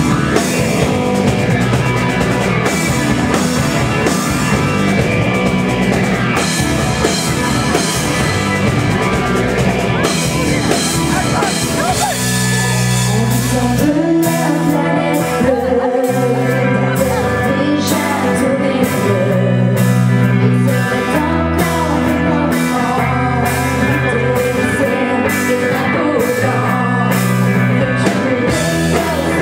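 Live rock band playing: drum kit on a Gretsch bass drum, electric guitar and a woman singing. About 14 seconds in, the band settles into a steady beat with regular drum hits over a low line.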